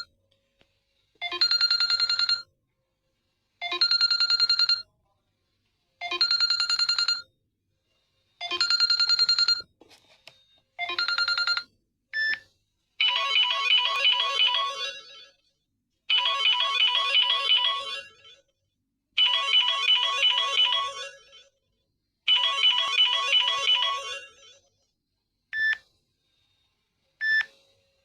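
Samsung Galaxy J5 Prime alarm tones. One short melodic phrase repeats about every two and a half seconds for the first twelve seconds; after a brief blip, a different, busier tune repeats in phrases of about three seconds. Single short blips come near the end.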